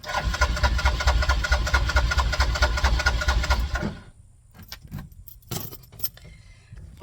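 Side-by-side UTV engine being cranked by its starter, an even rhythmic cranking for about four seconds that stops without the engine catching. The owner suspects a bad spark plug or fuel lines.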